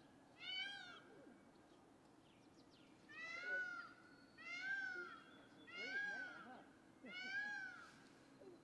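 Lion cubs calling: five short, high-pitched calls, each rising and then falling in pitch, one about half a second in and then, after a pause, four more at even spacing about a second and a half apart.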